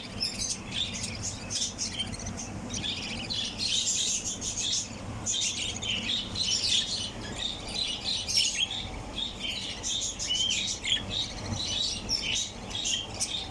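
A flock of caged rainbow budgerigars and their chicks chirping and chattering continuously, many short high calls overlapping.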